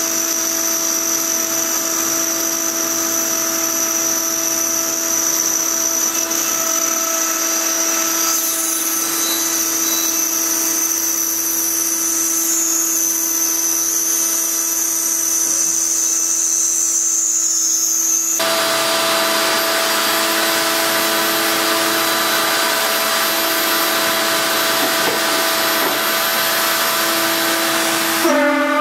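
CNC spindle running steadily while its end mill cuts a slot in 10 mm aluminium plate, a steady whine with a high tone over it. About eighteen seconds in, the high tone stops and a broader, louder hiss takes over while the spindle keeps running.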